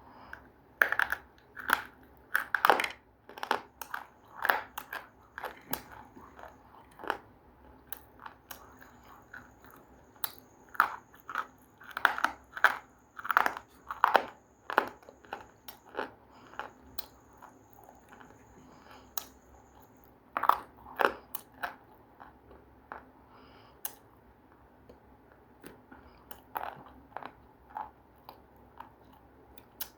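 Close-up biting and chewing of something hard and crunchy: runs of sharp crunches in several bursts, with quieter chewing between them.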